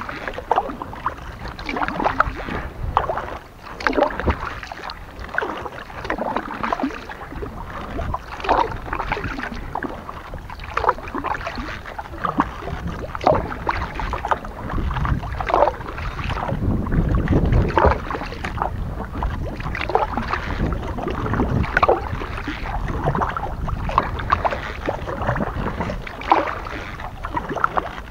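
Kayak paddle blades dipping and pulling through the water, a steady run of small splashes and drips from the strokes, with a low rumble of wind on the microphone swelling around the middle.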